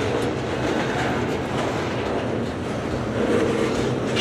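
Freight cars of a long freight train rolling past, steel wheels running on the rails with a steady noise and a few light clicks.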